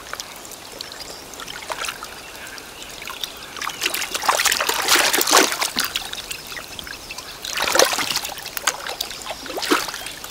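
Water splashing and trickling as a Eurasian otter swims at the surface, in clusters of splashes about four seconds in and again around eight seconds.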